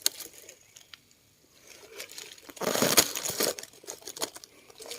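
Dry leaf litter and soil crackling and rustling under hand work, with scattered small clicks and a louder burst of crunching rustle in the middle.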